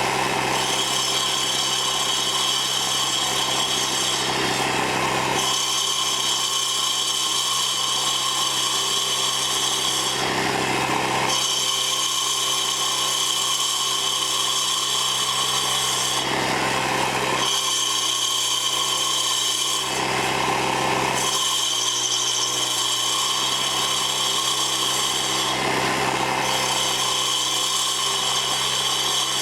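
Troy-Bilt edger's small four-stroke engine running hard while its carbide-tipped saw blades grind into a cedar stump. A high cutting whine comes and goes as the blades sweep across the wood, in passes of about four to five seconds over a steady engine hum.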